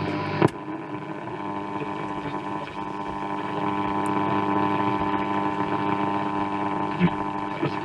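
Bush AC31 valve radio's wavechange switch clicking over to medium wave, then the loudspeaker giving static hiss and steady whistling tones as the set is tuned across the medium wave band between stations.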